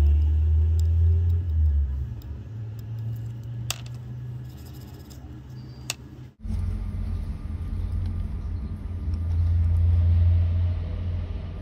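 Low, steady background rumble that swells and fades, with two sharp clicks in the middle. It cuts out abruptly about six seconds in and comes back at once.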